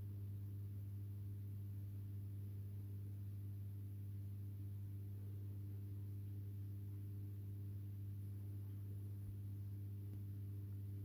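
Aquarium equipment running with a steady electrical hum: one strong low tone with several fainter, higher tones above it, unchanging throughout.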